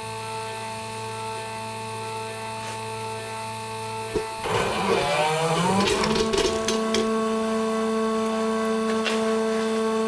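Homemade CNC engraving machine's stepper motors whining in steady, musical tones as the axes travel. A click comes about four seconds in, then the pitch warbles and sweeps as the motors change speed, and it settles on a higher steady tone.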